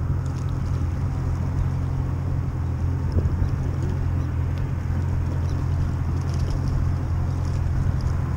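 Outboard motor of a center-console fishing boat idling with a steady low hum.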